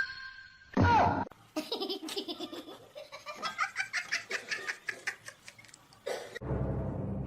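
A person laughing in rapid, repeated bursts for several seconds, after a short loud cry with a falling pitch about a second in.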